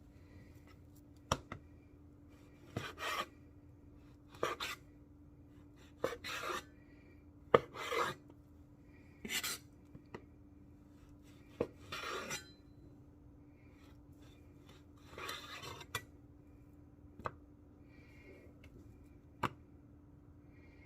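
Kitchen knife slicing through leftover grilled pork belly on a cutting board, trimming out the cartilage: separate rasping cuts every second or two, several ending in a sharp tap of the blade on the board.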